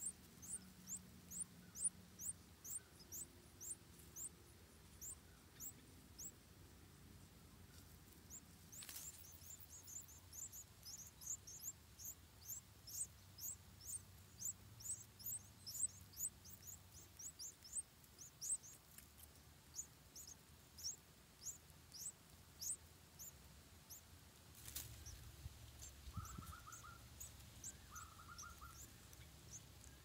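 Yellow-vented bulbul nestlings begging: a rapid series of thin, very high, downward-slurred cheeps, about three a second, densest in the middle. Two short, lower notes come near the end.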